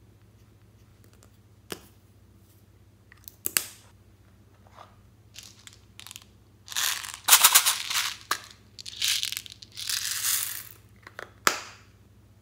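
A few sharp clicks as small plastic cosmetic containers are handled and opened, then several seconds of loud, rough rattling in bursts as small beads are shaken out of a plastic case into slime, ending with another click.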